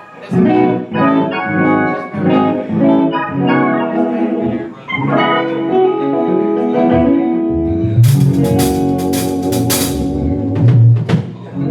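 Music: a run of held, chord-like notes, with a cluster of sharp percussive hits over heavy bass from about eight to ten seconds in.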